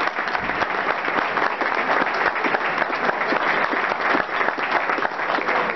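Audience applauding: many hands clapping steadily without a break.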